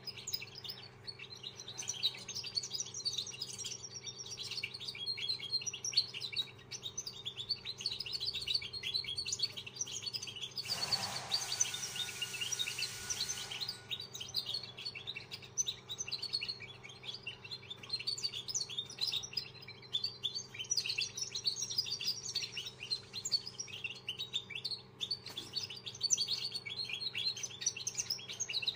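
Young caged finch, a first-year bird about two months old, practising its song: a continuous rambling stream of rapid high chirps and twitters rather than set phrases. A brief rustling noise comes about eleven seconds in.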